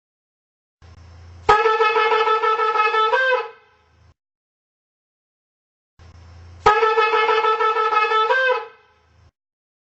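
Shofar blown twice, each a single blast of about two seconds that starts sharply and breaks upward in pitch just before it ends. A faint low hum comes in shortly before each blast.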